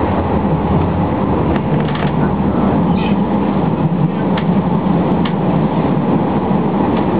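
Tram running between stops, heard from inside the car: a steady rumble of wheels on rails with a low motor hum and a few faint clicks.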